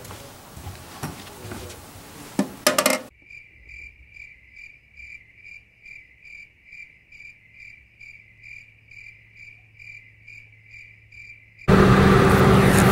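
Crickets chirping as a sound effect: a steady pulsing chirp, about two and a half chirps a second, lasting about eight seconds, after a short stretch of indoor room noise with a few knocks. About a second before the end it cuts suddenly to loud outdoor background noise.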